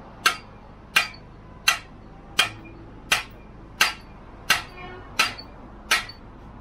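Hammer blows on steel, nine sharp metallic strikes at an even pace of about one every 0.7 seconds, each with a short ring, as a large flanged steel pipe is worked.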